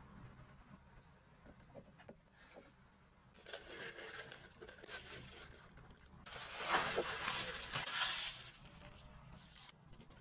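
A disposable plastic piping bag rustling and crinkling as it is handled and filled with cookie batter, loudest for about two seconds just past the middle. Before that, a spatula scrapes faintly against a glass mixing bowl.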